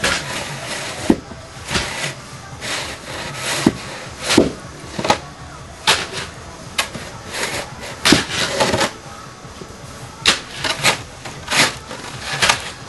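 Snow shovel scraping and digging through snow, a string of short, irregular scrapes and knocks about one or two a second.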